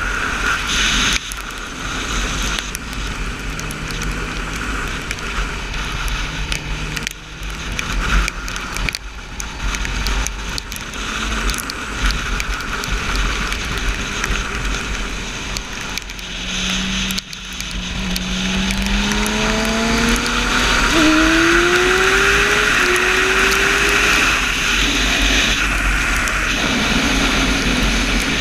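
Motorcycle engine at track speed, buried under heavy wind rush on the microphone. Past the middle the engine note climbs hard several times, dropping back between climbs: upshifting through the gears under full acceleration.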